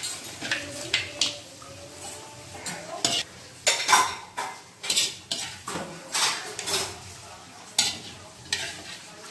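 Steel ladle scraping and clinking against a thin metal wok in irregular strokes, with chopsticks, as browned chicken pieces are scooped out of the pan.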